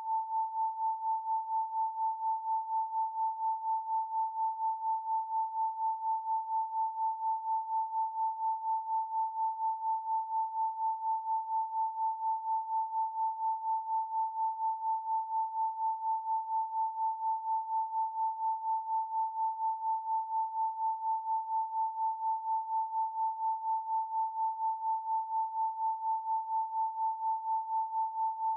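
Continuous electronic 888 Hz pure sine tone, held at one pitch and pulsing evenly in loudness about four times a second.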